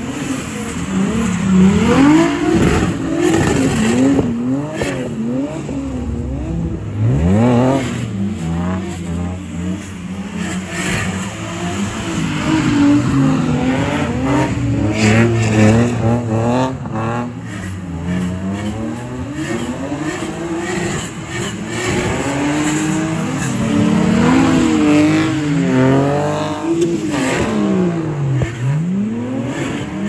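Car engines revving hard while drifting: the pitch swings up and down over and over, with a steep rev-up about seven seconds in.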